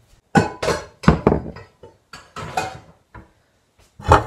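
Kitchenware clattering and knocking as things are moved about in a low kitchen cupboard: a series of loud knocks and clinks, several in quick pairs, some with a brief ring.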